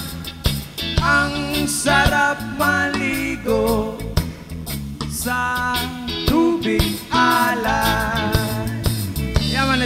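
Background music: a sung song with a steady beat.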